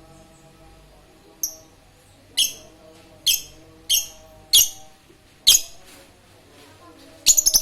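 Lovebird giving short, shrill chirps, six of them about a second apart, then a quick burst of several near the end.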